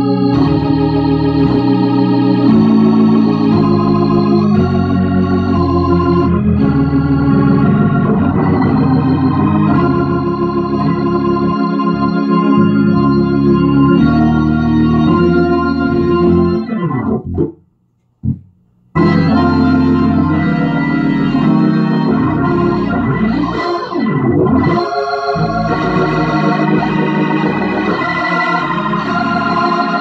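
Hammond organ playing sustained chords through a Leslie 147 rotating speaker, a sound check of its freshly refurbished amplifier. About 17 seconds in the notes slide down in pitch and the sound cuts out for about a second and a half, then the playing resumes.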